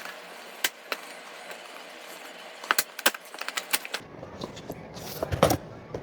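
Packaging of a light stick box being handled and opened: scattered light clicks and taps, a quick flurry of them about three seconds in, then rustling handling with a louder knock near the end.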